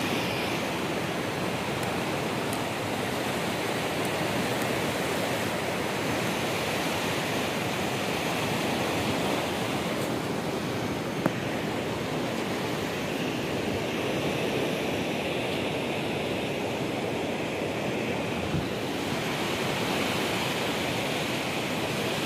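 Fast, turbulent muddy river water rushing steadily.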